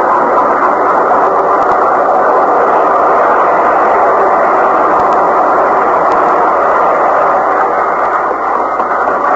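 Radio-drama sound effect of a railway train rushing past, a loud steady rushing noise that drops away near the end.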